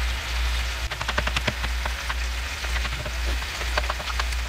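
Chicken pieces searing in hot oil in a frying pan, a steady sizzle. Over it come a few quick clicks of a knife on a plastic cutting board, about a second in and again near the end.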